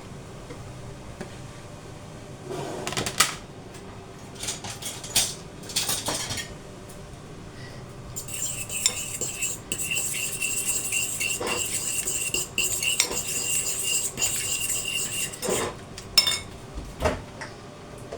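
A spoon clinking against a bowl, then a long run of quick, even stirring strokes scraping round it as yogurt is mixed into a coriander dip, with a few knocks of utensils near the end.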